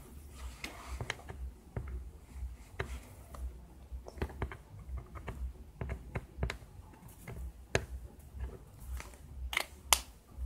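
Correction pen tip pressed and dabbed on paper: irregular light clicks and taps, over a low hum, with a couple of louder clicks near the end as the pen is handled.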